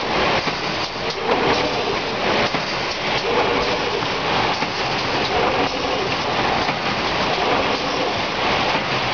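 Industrial cutting machine running: a loud, steady hissing noise with a wavering mid-pitched tone in it.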